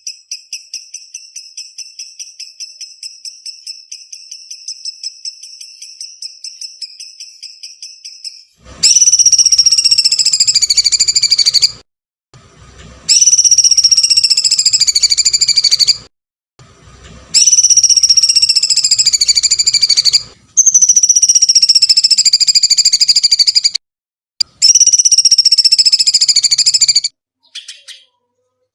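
Caged songbird calling on a recorded training track: first a rapid run of short, evenly repeated high chirps on a steady pitch, then five loud, shrill, drawn-out screeching notes of about three seconds each, every one sliding slowly down in pitch. These long screeches are the 'kuntilanak scream' call style prized in Indonesian songbird training.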